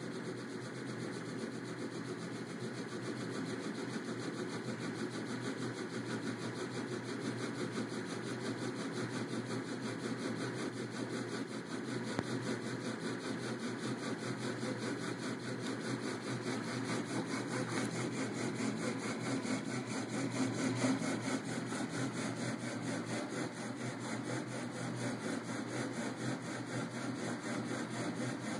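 Stepper motors of a home-built mUVe 3D printer driving the X and Y axes through their belts: a steady mechanical buzz with a fast, even pulse in it.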